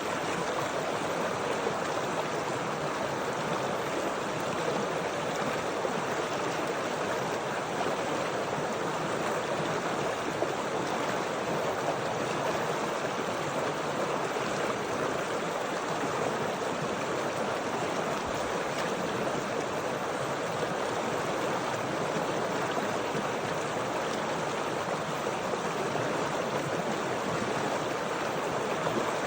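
Flowing stream water making a steady, unbroken rush.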